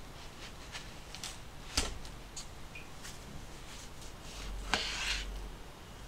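Light kitchen handling clicks with one sharp knock about two seconds in, then a kitchen knife slicing raw chicken on a bamboo cutting board, with a short scraping stroke a little before five seconds.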